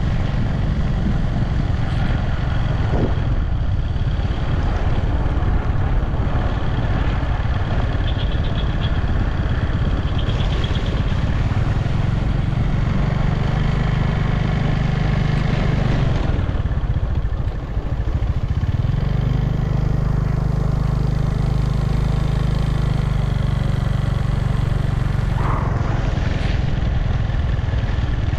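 A vehicle's engine runs steadily with road and wind noise while moving along a wet road. The engine note dips briefly a little past halfway through, then holds steady again.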